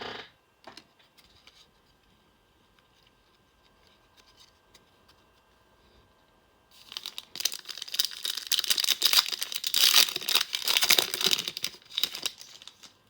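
Foil trading-card pack wrapper being crinkled and torn open: a dense crackling burst lasting about six seconds, starting about seven seconds in, after a few faint clicks of cards being handled.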